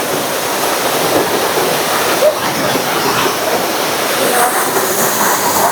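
Waterfall's falling water rushing in a steady, loud noise.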